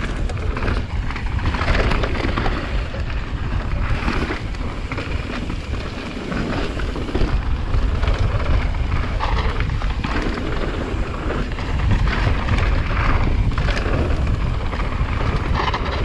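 Wind buffeting a helmet-mounted GoPro's microphone as a downhill mountain bike descends a dirt trail, with a constant deep rumble and brief rattles from the tyres and bike over rough ground.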